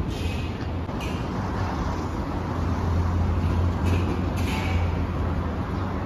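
City street traffic: a steady low rumble of vehicle engines, with a few short hisses.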